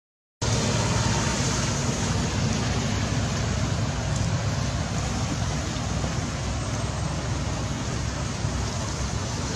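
Steady rushing noise with a low rumble and no clear animal calls, after the sound drops out completely for a moment at the start.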